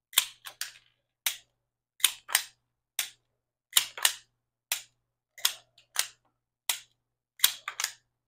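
A .22 pistol's slide racked by hand again and again with snap caps chambered. Sharp metallic clicks come about every second, often in quick pairs as the slide goes back and slams forward, with single clicks of the trigger dropping on a snap cap in between.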